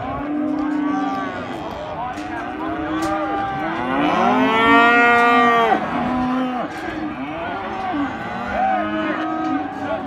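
Many weaner calves bawling in steel saleyard pens, their calls overlapping one another, with one loud, long bawl about halfway through.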